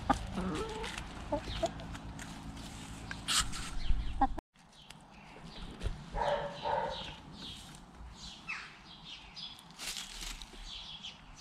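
Domestic chickens clucking and calling, with many short high chirps in the last few seconds. A low rumble with a few sharp knocks runs under the first four seconds and then cuts off abruptly.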